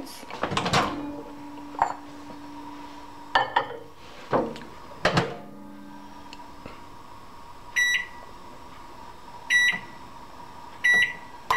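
Microwave oven being loaded and set: several clunks and knocks from the door and the bowl going in, then three short keypad beeps about a second and a half apart near the end as the 20-second heating time is keyed in.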